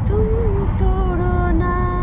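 A woman singing long held notes, the pitch bending slightly between them, over the steady low rumble of road noise inside a moving car.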